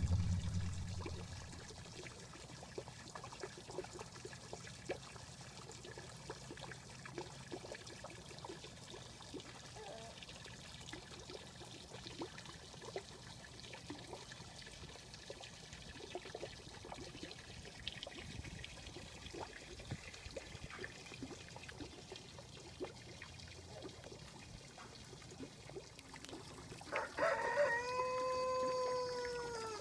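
Music fading out, then faint scattered clicks and crackles; near the end a single long animal call with a clear pitch, held for about three seconds and falling away at its end.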